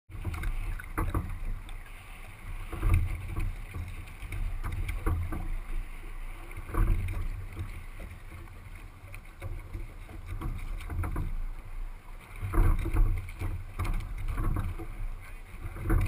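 Choppy water slapping against the bow of a racing double scull under way, with gusting wind buffeting the microphone in a heavy low rumble that surges every couple of seconds.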